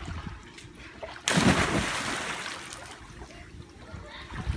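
A loud splash in a swimming pool about a second in, as a body plunges into the water, fading over a couple of seconds into lapping water.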